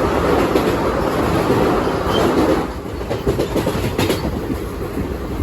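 Passenger train running along the line, heard from on board: a steady rumble with the clickety-clack of the coach wheels over rail joints, easing a little about halfway through.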